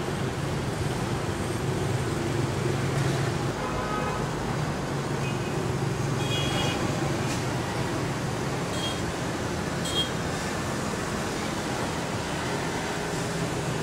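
Street traffic noise: motorbike and scooter engines running, with a few short high-pitched tones about 4, 6.5 and 10 seconds in.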